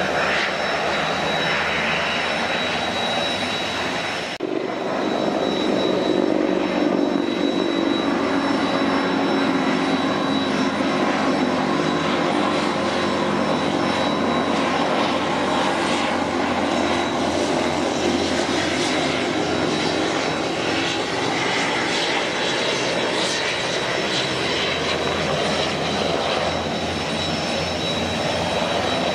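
Eurocopter EC225LP Super Puma helicopter flying past: the steady noise of its twin turboshaft engines and rotors, with a thin steady whine over it. The noise dips briefly about four seconds in.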